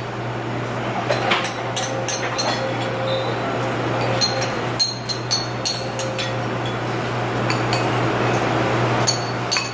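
Metal chopsticks and a metal spoon clinking and scraping against a ceramic bowl, a scatter of sharp clicks, over a steady background hum.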